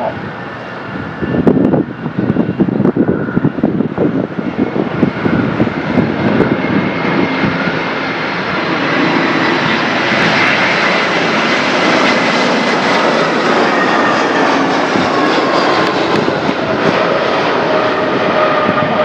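Airliner engines on a landing pass: steady engine noise with a high whine that slowly falls in pitch. The first several seconds hold an uneven, gusty rumble.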